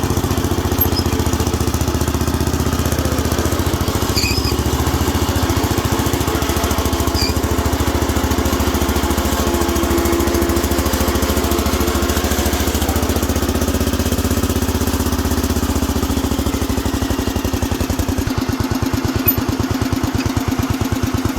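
1971 Sears Hydro-Trac 14 garden tractor's small engine running steadily, its firing pulses slowing in the last few seconds as it winds down.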